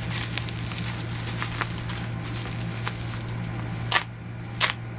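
Crackling, rustling packaging as a wrapped padlock is unwrapped by hand, followed by two sharp clicks near the end.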